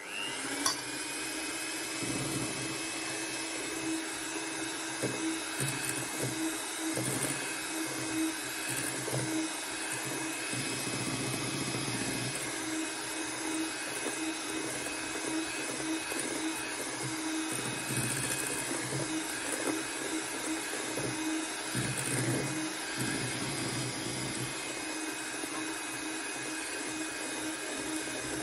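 Electric hand mixer whipping egg whites into French meringue in a stainless steel bowl, the meringue starting to stiffen. The motor spins up with a short rising whine right at the start, then runs steadily.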